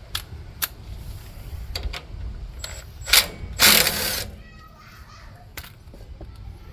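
Ratchet wrench with a 9/16-inch socket loosening the nut on a lawn tractor's belt idler pulley: scattered ratchet clicks, with two louder noisy bursts a little past three seconds in.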